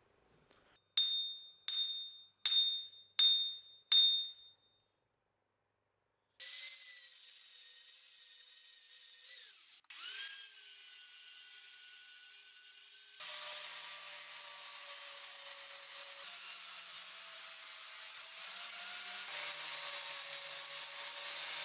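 Five sharp ringing metallic strikes about three-quarters of a second apart, each with the same clear high ring. Then an angle grinder spins up and grinds the steel axe head clamped in a vise to take out dents from old hammer blows. It stops and restarts briefly, and grinds harder and louder from about halfway through.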